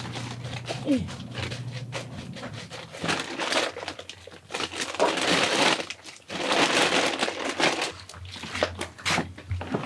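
Plastic crinkling and rustling in irregular bursts as a hand in a disposable plastic glove handles kimchi in a stainless steel bowl.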